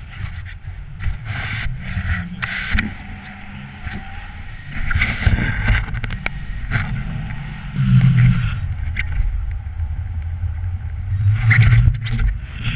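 Wind rushing over an action camera's microphone in tandem paraglider flight, a low buffeting rumble that surges louder about five, eight and eleven seconds in as the glider swings through steep banked turns.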